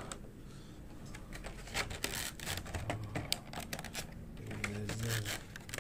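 Light clicks, taps and rustles of hard plastic being handled: a clear plastic packaging tray and the toy's parts, scattered irregularly.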